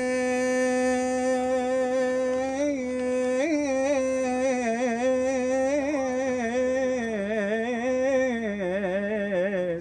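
A man singing unaccompanied, a wordless stretch of an Iraqi song. He holds one long steady note for about three seconds, then moves into wavering, ornamented runs that fall in pitch near the end.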